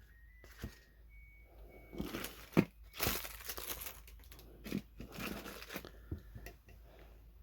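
Close handling noise: crinkling and rustling, like plastic being handled, with a few sharp clicks, busiest in the middle stretch.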